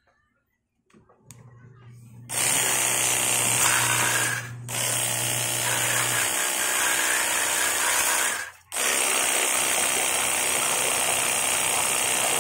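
INGCO cordless lithium-ion pressure washer running: the pump motor whirs and the high-pressure water jet hisses steadily. It stops for a moment twice along the way.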